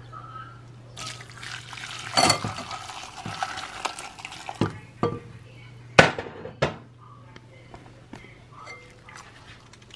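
Fish stew broth poured from a pot through a wire-mesh skimmer into a glass bowl, splashing for a few seconds. It is followed by several sharp clinks of metal against glass.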